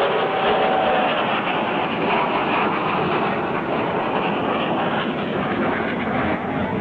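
F-16 jet engine noise, a steady, loud rush of sound with no clear pitch.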